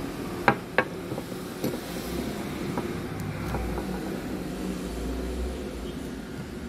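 Handling noise as a plastic-framed phone display assembly is turned in the hand: two sharp clicks about half a second in, then a few fainter ticks, over a steady low rumble.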